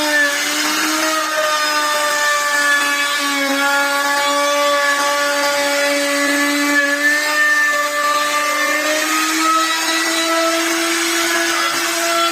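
Electric power tool running steadily on wood, its motor giving a high whine over a rushing noise. The pitch rises slightly about nine seconds in as the load changes.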